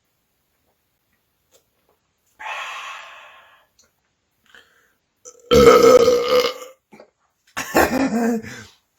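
A man belching loudly: a long burp about halfway through, then a second, shorter burp. A fainter sound comes before them.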